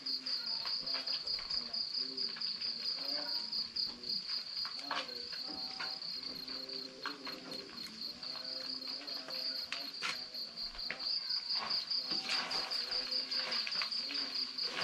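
Crickets chirping in a steady, fast-pulsing high trill, with occasional faint clicks.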